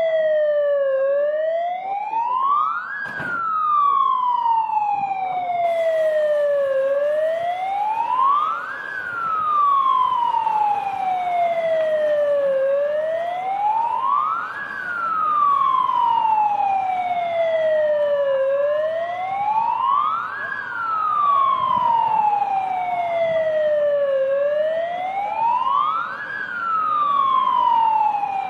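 Fire engine siren wailing, sweeping up quickly and falling back more slowly about once every six seconds. A single sharp click sounds about three seconds in.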